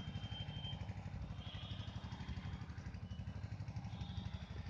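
A small engine running steadily at idle in the background, with an even, fast low throb.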